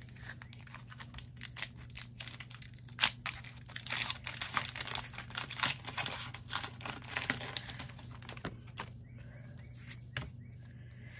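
A Pokémon trading card booster pack's foil wrapper being torn open and crinkled in the hands: a dense run of crackling and tearing that dies down after about eight seconds.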